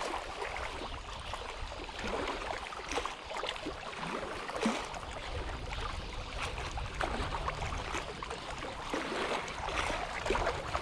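Choppy water lapping against shoreline rocks: a steady wash with irregular small splashes.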